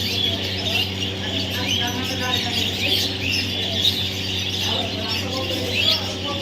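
Baby parrot chirping over and over in short, high calls, with a steady low hum underneath.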